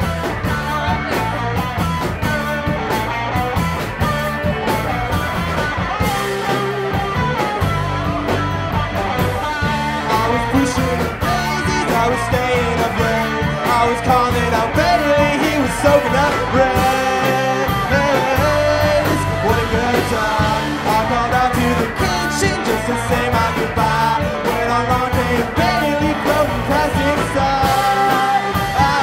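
Rock band playing a song live: electric guitars and a drum kit, with a singer.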